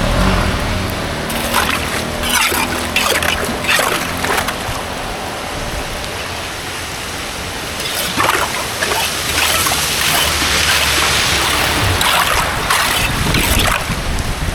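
Water splashing and flowing at a blocked culvert being cleared, with clusters of short sharp knocks and scrapes, in two bouts: early on and again from about eight seconds in.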